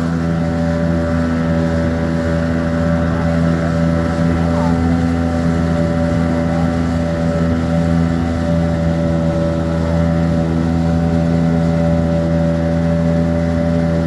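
Motorboat engine running steadily at cruising speed, with the rush of the boat's wake and wind.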